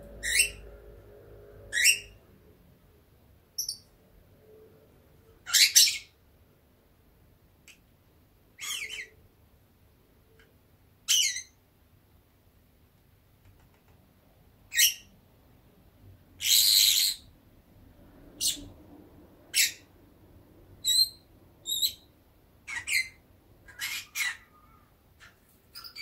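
Pet lovebird chirping: a string of short, high-pitched calls with pauses between them, one longer call about two-thirds through, and the calls coming closer together near the end.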